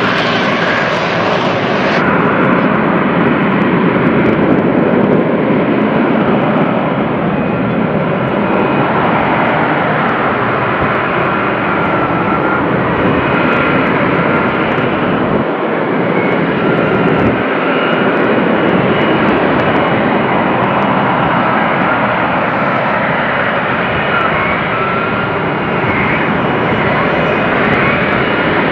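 F-35B's F135 jet engine and lift fan running in a hover during a vertical landing: a loud, steady jet roar with a thin whine above it.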